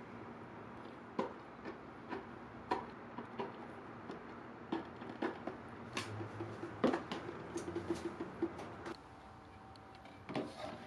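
Scattered light taps and clicks as pieces of food and wooden skewers are set into a stainless steel hot-pot pan, a few knocks ringing briefly against the metal, with a louder knock near the end.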